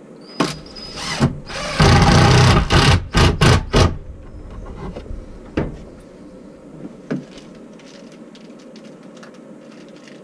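Cordless drill-driver driving a screw to fix a plastic adaptable box to wooden cladding: one long run of about a second, then three short trigger pulses. A few clicks and knocks follow as the tool is handled and set down.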